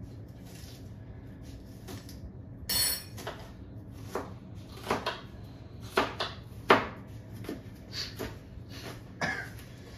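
Scattered knocks and clinks of kitchen utensils and dishes, about ten irregular strikes, with a longer clatter about three seconds in.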